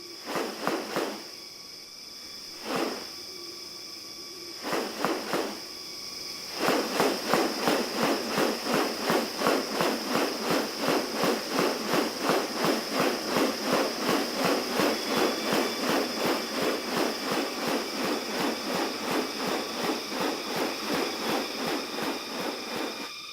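Steady high-pitched insect drone with short, sharp repeated notes. There are a few notes at first; from about seven seconds in they become a fast, even series of about three a second.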